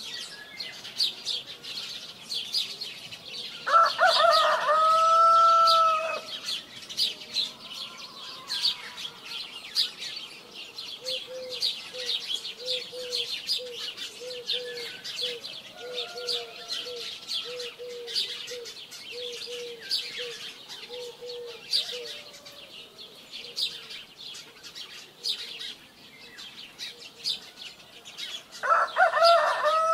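A rooster crows twice, a long held call about four seconds in and another starting near the end, over constant chirping of small birds. In the middle a run of short, low repeated notes sounds, like clucking.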